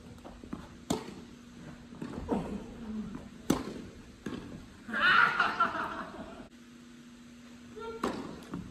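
Tennis balls struck by rackets in a doubles rally: sharp single hits about a second in and three and a half seconds in, and again near the end. About five seconds in, a loud, brief burst of a player's voice.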